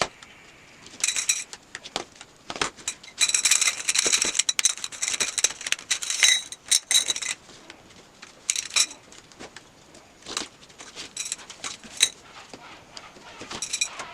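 Parts of a four-tier portable rack clinking and rattling as they are handled and fitted together: irregular runs of sharp, ringing clinks, densest in the first half.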